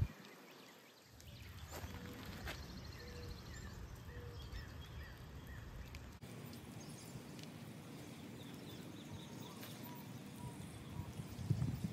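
Steady rain falling, an even hiss with a few faint chirps over it.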